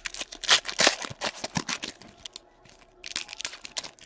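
Foil wrapper of a trading card pack crinkling and tearing as it is handled and opened, in two spells of rustling, the second about three seconds in.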